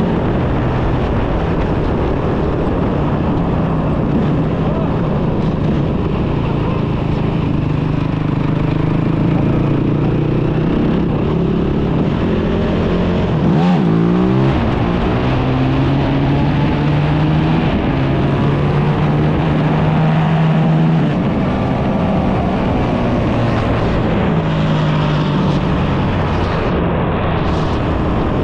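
Kawasaki KFX450R quad's single-cylinder four-stroke engine running under way. Its note holds steady, then shifts up or down every few seconds as throttle and gear change, with a quick rise and fall in pitch about fourteen seconds in.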